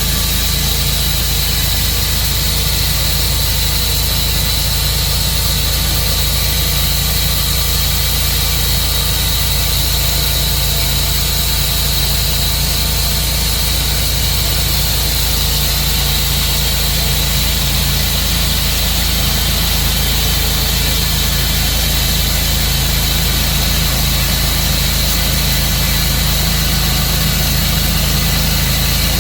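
Tru-Cut sawmill's engine running steadily, with a constant high whine over a low hum.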